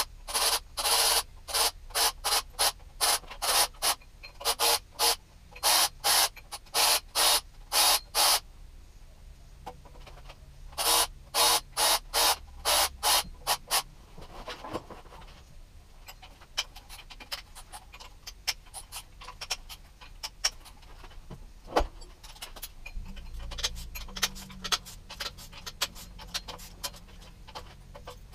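Socket ratchet clicking in quick repeated strokes, about two to three a second, loosening the cam cap bolts on a Toyota 1UZ-FE V8. Two runs of strokes are separated by a short pause, then come lighter scattered clicks and taps of the tool on the engine.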